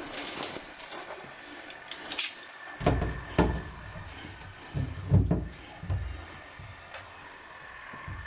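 Pliers gripping and tightening the plastic clamp band on a front-loading washing machine's door gasket. Irregular clicks and dull knocks against the machine's front panel.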